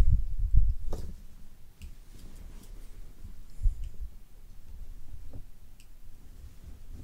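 Handling noise and small clicks of a Swiss Army knife blade tip being worked under the red Cellidor handle scale of another Swiss Army knife to pry it off. It opens with a low knock, then a few scattered sharp clicks of metal against plastic.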